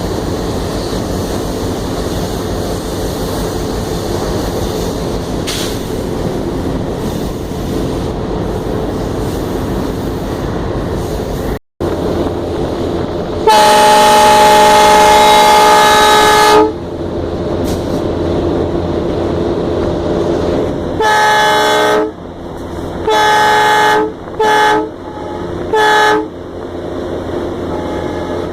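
Diesel locomotive running, heard from on board, with its horn sounding: one long blast about halfway through, then four shorter blasts near the end.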